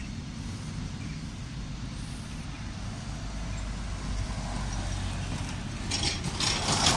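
Low, steady rumble of a truck driving past close by, swelling in the middle, followed near the end by two loud bursts of hissing noise.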